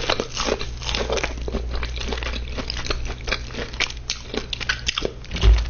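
Close-miked chewing and biting of crunchy fried food, a dense run of small crackles and crunches, with a low thump near the end.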